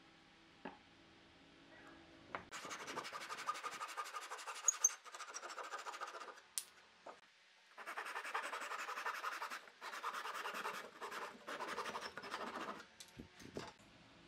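Small hand saw cutting through a wooden block with quick back-and-forth strokes, rasping in two spells with a short pause between them.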